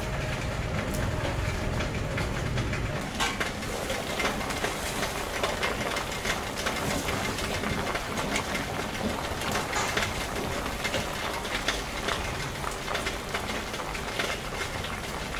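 A pot of fish simmering over a wood fire: bubbling and hissing, with many small crackling clicks, starting about three seconds in. Before that there is a low steady hum.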